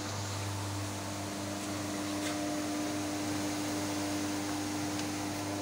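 1-ton horizontal feed mixer running with a steady electric hum while its batch is emptied through the discharge chute.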